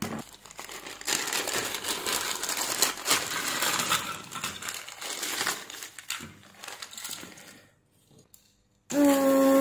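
Clear plastic zip-lock bag crinkling as hands rummage through it for spare parts. It breaks off, and near the end a steady pitched hum starts abruptly.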